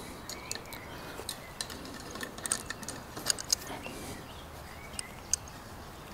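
Metal clicks and clinks of two adjustable spanners being fitted onto the nut and bolt head of a split bolt wire clamp. The clicks are short, sharp and irregular, clustered in the middle with a couple more near the end.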